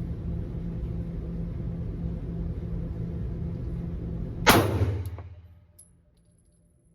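A single 9mm pistol shot from a Glock 45 about four and a half seconds in: one sudden loud crack that rings off over about a second. Before it a steady low rumble runs; after the shot the sound falls to near silence.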